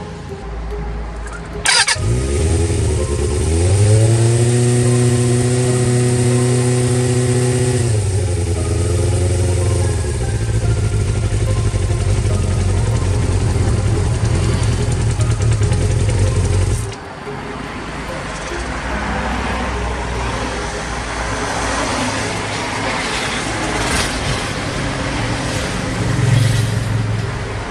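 Suzuki Bandit 400's inline-four engine catching at about two seconds and revving up. It holds a steady raised rev for a few seconds, then drops back and runs steadily. At about seventeen seconds it gives way abruptly to a rougher, noisier engine sound.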